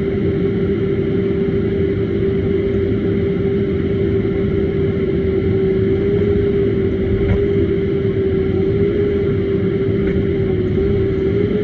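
CAT 501 HD running steadily under hydraulic load: a constant engine drone with a steady humming whine held on one pitch.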